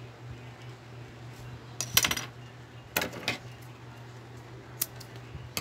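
Metal scissors picked up and snipping off a cotton yarn end: a few short metallic clicks and rattles, the two loudest about a second apart.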